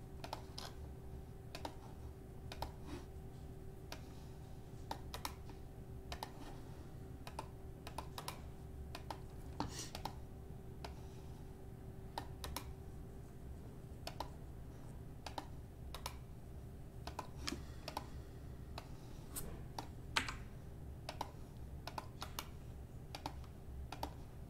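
Faint, irregular keystrokes and clicks on a computer keyboard, over a low steady hum.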